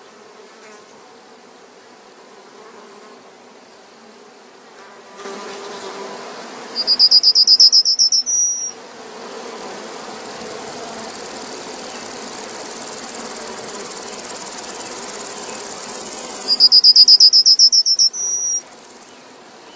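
A singing insect: two loud, rapidly pulsed high trills of about two seconds each, about ten seconds apart, with a faint steady hiss between them.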